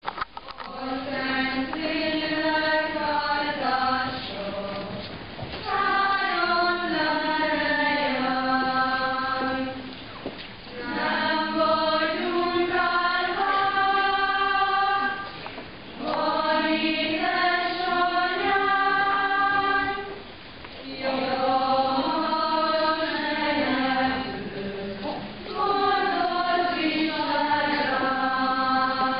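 A group of voices singing a slow hymn, in phrases of about five seconds with a short breath between each.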